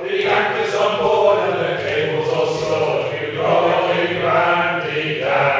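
A group of men singing a sea shanty together, unaccompanied, in held phrases that break every second or two.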